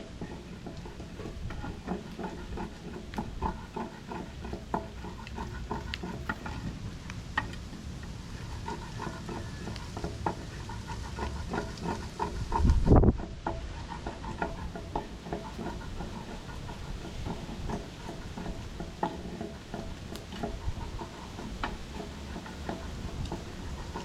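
Stirring and scraping in a cooking pot: a steady run of short scrapes and clicks, with one dull low thump about thirteen seconds in.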